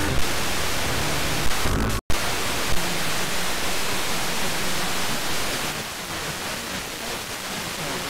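FM radio static: the steady hiss of an Airspy HF+ receiver demodulating wideband FM on empty or very weak channels around 94 MHz, with no station to lock onto. The hiss cuts out for an instant about two seconds in as the receiver is retuned, and is a little quieter in the second half.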